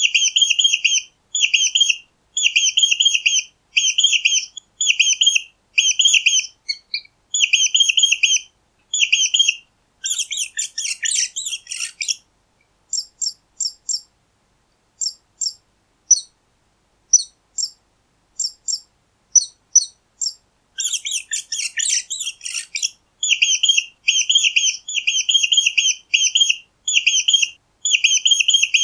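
Mice squeaking: runs of short, high-pitched chirping squeaks in quick clusters with brief gaps. A denser, scratchier burst of squealing comes about ten seconds in and again about twenty-one seconds in, with a spell of sparse single short squeaks between them.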